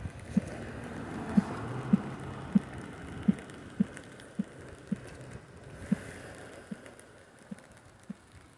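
Footsteps on a wet concrete footbridge, short low thuds at a steady walking pace of just under two a second, over a hiss of rain that swells early and then fades.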